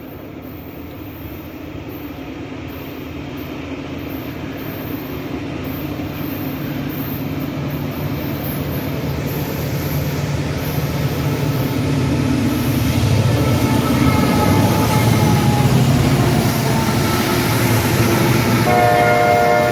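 Diesel freight locomotives approaching, their engine and rail rumble growing steadily louder. Near the end the train horn sounds briefly, a chord of steady tones.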